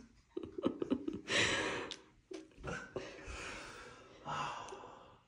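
A person breathing hard in shock: three or four long, noisy breaths, the loudest about a second in, with a few small clicks before them.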